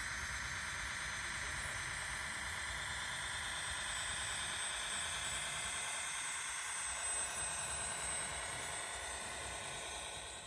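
Small electric motors and gearing of a radio-controlled scale Unimog running with a steady whirring whine, which falls away near the end.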